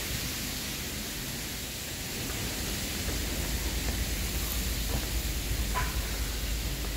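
Steady rushing wind noise on an open ship deck, a hiss with a low rumble underneath that grows a little louder partway through.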